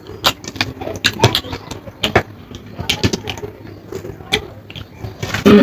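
A person chewing food close to the microphone: wet mouth clicks, smacks and small crunches following one another irregularly, with a short louder vocal sound near the end.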